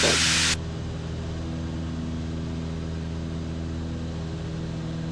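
Steady drone of a Piper PA-34 Seneca II's twin turbocharged Continental six-cylinder engines and propellers in flight, the propellers held at a constant speed by their governors. A loud hiss over it cuts off about half a second in, leaving the engine drone alone.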